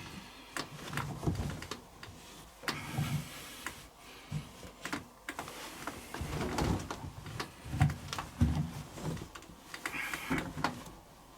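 Laundry being pushed and packed into a washing machine drum: cloth rustling with irregular soft thumps and short knocks.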